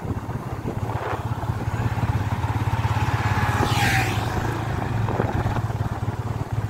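Yamaha FZ25's single-cylinder engine running steadily at cruising speed, with road and wind noise. A brief whoosh comes about four seconds in.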